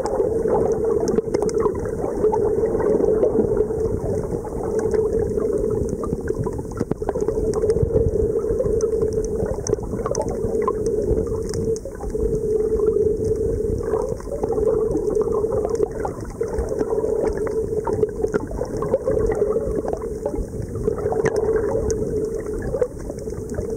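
Muffled underwater ambience picked up by a submerged camera: a steady low drone that swells and dips every few seconds over a rumble of moving water, with scattered faint crackling clicks.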